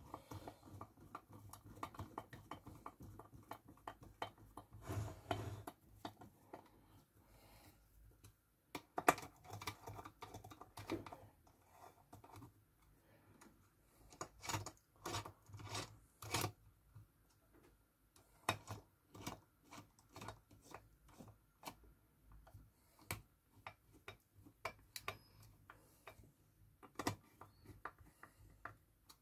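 Irregular light clicks and taps of a screwdriver working small screws into a soldering station's chassis and circuit board, with metal parts being handled.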